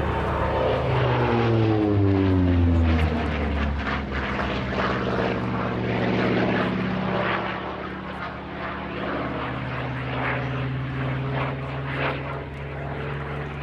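Hawker Sea Fury T.20's radial engine and propeller in a display fly-past. The engine note drops in pitch over the first three seconds as the plane passes, loudest at that point, then holds a steady drone.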